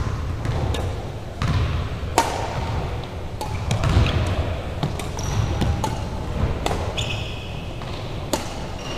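Badminton rally: sharp cracks of rackets striking a shuttlecock about once a second, with brief high squeaks of sneakers on a hardwood court and a steady low rumble underneath.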